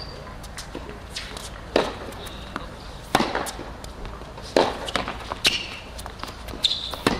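Tennis rally on a hard court: a ball struck back and forth with sharp racquet hits and bounces about every second or so, with a few short sneaker squeaks.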